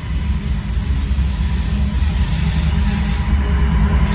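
Union Pacific diesel freight locomotives approaching with a deep, steady engine rumble that grows slightly louder as the lead unit draws near.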